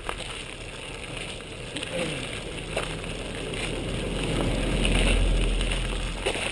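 Wheels rolling over a gravel path, a steady crunching rumble with scattered small clicks and wind on the microphone. A Volvo sedan passes on the street alongside, the sound swelling to its loudest about five seconds in and fading again.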